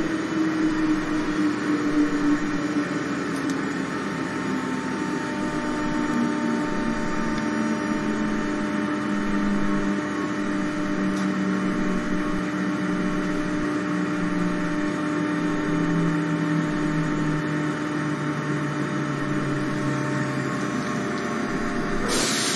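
SNCF Z 5600 double-deck electric train slowing as it pulls in, its traction motors whining in several tones that fall steadily in pitch as it brakes. A sudden loud hiss starts near the end.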